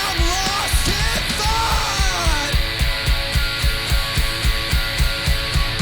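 Live punk rock duo: a distorted Fender Telecaster electric guitar and a drum kit play an instrumental passage with a fast, steady drum beat. Gliding, bent guitar notes sound over the first couple of seconds.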